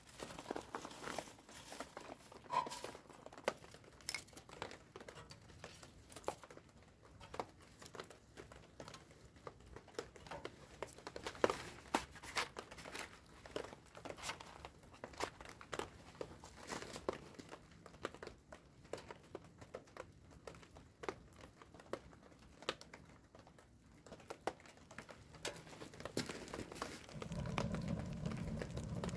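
Dry wood-shaving kindling crinkling and rustling as it is handled and packed into a small steel wood stove's firebox. Near the end comes a louder low rushing as the shavings catch and flare up.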